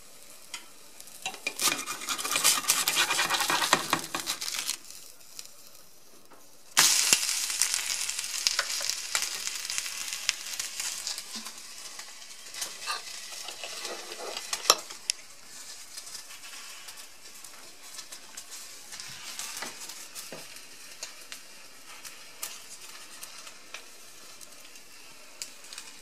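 An egg frying in a non-stick pan, sizzling loudly at first. A fresh sizzle starts suddenly about seven seconds in and slowly dies down. A metal spoon stirring in a ceramic bowl gives occasional sharp clinks.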